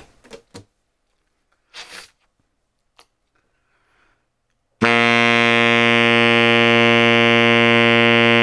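Baritone saxophone playing one long, steady held note, voiced with a middle-of-the-road open 'ah' shape in the mouth and throat. The note starts suddenly a little past halfway, after a few faint small sounds.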